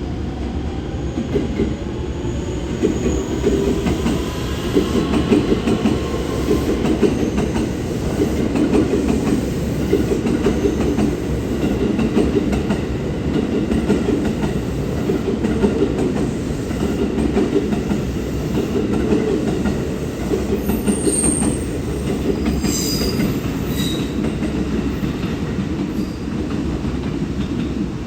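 Train running on the tracks at a station platform: a steady, heavy rumble of wheels on rail, with a faint rising motor whine in the first few seconds and brief high-pitched wheel squeals about three-quarters of the way through.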